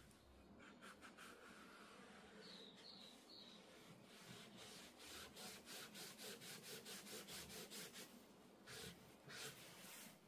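A hand rubbing back and forth over damp Arches 300 g watercolour paper. It makes quiet, even strokes, about four a second, that quicken into a steady run midway and end with two stronger strokes.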